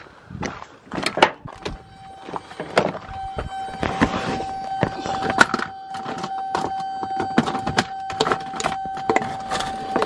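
Scattered knocks and clinks of tools and parts being handled during work on the car, with a steady high-pitched whine that starts about a second and a half in and keeps going.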